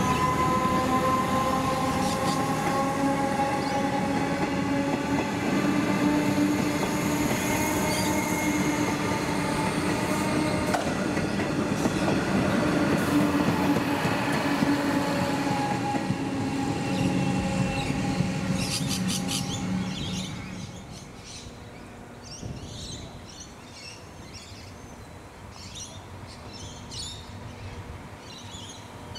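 Comeng electric suburban train passing close by: wheels rumbling on the rails under a steady whine of several tones that sags slightly in pitch as it goes past. The train noise falls away about twenty seconds in, leaving birds chirping.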